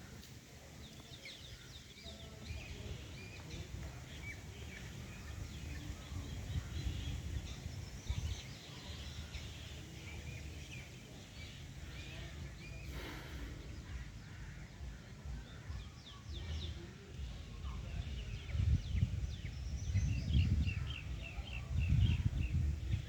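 Many short bird chirps and twitters, with a low rumble underneath that grows louder in the last few seconds.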